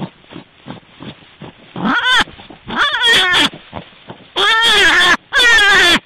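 Rabbit calling: a run of quick soft snuffles, then about five shrill squeals, each arching and falling in pitch, the last two longer and the loudest.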